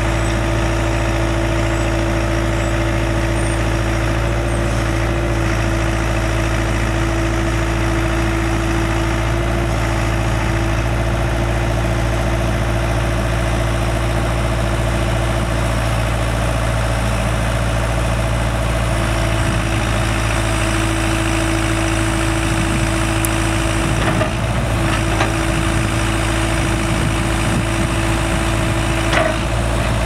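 1997 New Holland Ford 555E backhoe loader's four-cylinder diesel engine running steadily while the loader arms and backhoe boom are worked. A steady whine rides over the engine and drops out for a few seconds midway. A couple of light knocks come near the end.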